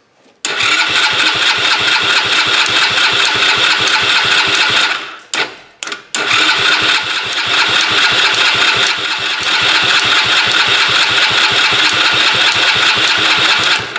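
Tao Tao ATV's engine cranking on its electric starter in two long tries, with a short pause between them, and not catching. The choke is on and starter fluid has been sprayed in; the owner guesses a stuck carburetor float valve is letting no fuel into the float bowl.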